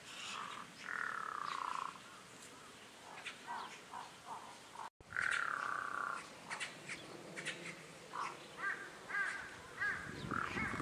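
Birds calling: a drawn-out whistled note about a second in, another just after halfway, then a run of short rising-and-falling chirps near the end.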